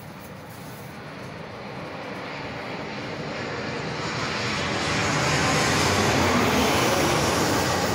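Jet engines of a Boeing 737-800 airliner on final approach, gear down, passing low overhead: a broad rushing roar that grows steadily louder and is at its loudest near the end.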